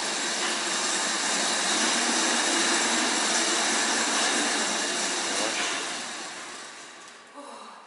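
Steady whirring rush from a pedal-driven exhibit: a stationary bicycle spinning a wall of rotating picture slats. It holds steady for about five seconds, then dies away over the last two seconds as the pedalling stops.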